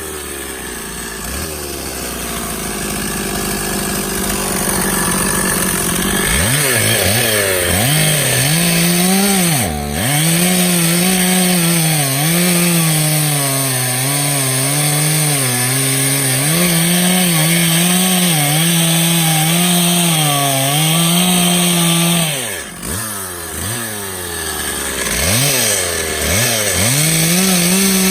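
Stihl chainsaw cutting oak limb wood, the engine's pitch wavering as the chain bogs and recovers in the cut. It runs lower for the first several seconds, revs up about six seconds in, drops briefly near the three-quarter mark, then revs back up near the end.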